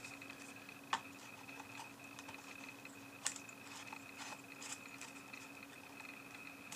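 Scattered faint clicks and taps of a small ball-head mount being handled and screwed into the threaded socket on the back of a 7-inch LCD monitor, over a steady faint hum.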